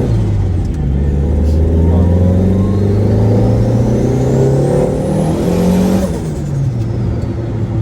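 Turbocharged car accelerating hard through one gear, heard from inside the cabin: the engine note climbs with a turbo whistle rising over it, then the throttle closes about six seconds in and the engine note drops while the whistle falls away.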